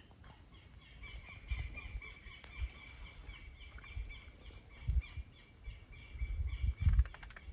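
A bird calling: a fast run of short, falling chirps, about three a second, over a thin steady high tone. A few low thumps on the microphone stand out, the loudest about five and seven seconds in.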